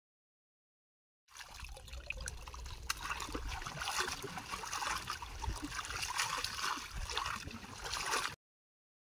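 Muddy water sloshing and trickling with many small crackles as a woven bamboo basket is worked in a shallow ditch, water draining out through the weave. The sound starts about a second in and cuts off sharply near the end.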